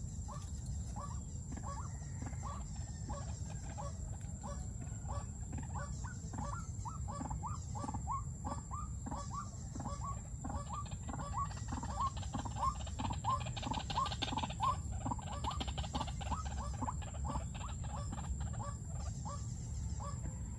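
White-breasted waterhen calling in a long run of short, repeated notes, about two to three a second, coming a little faster in the middle.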